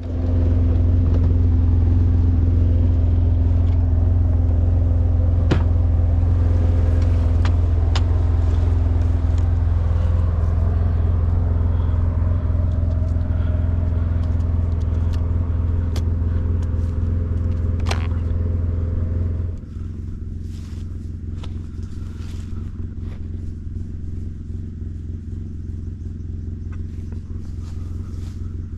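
Vehicle engine running steadily with a loud low hum, heard from inside the vehicle, with a few light clicks. About twenty seconds in, the engine note drops and grows quieter.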